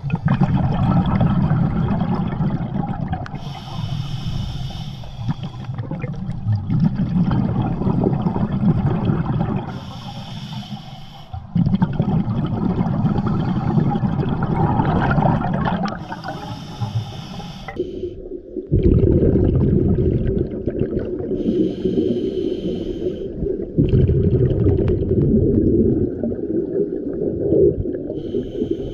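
Scuba diver breathing underwater through a regulator: a hiss on each of five inhalations, about six seconds apart, and a low bubbling rumble of exhaled bubbles in between.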